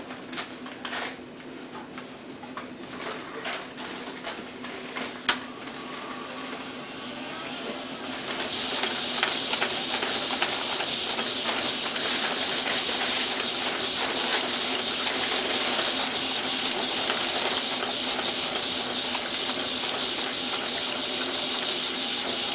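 Hefter ES 300 envelope sealer running: its motor hums steadily with scattered clicks as envelopes are set in the feeder. About eight seconds in it changes to a fast, continuous rattle as envelopes feed one after another through the sealing rollers into the tray.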